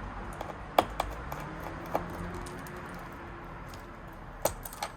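Sparse light clicks and taps of small computer parts and a cable connector being handled: a few in the first two seconds and a close pair near the end, over a low steady hum.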